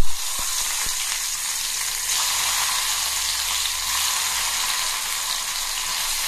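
Bitter gourd pieces sizzling steadily as they fry in hot oil in a pan. There is a short knock right at the start and a few faint clicks soon after.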